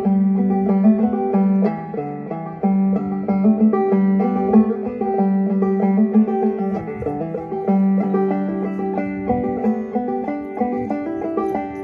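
Banjo played clawhammer style: a continuous run of plucked notes over a low sustained note.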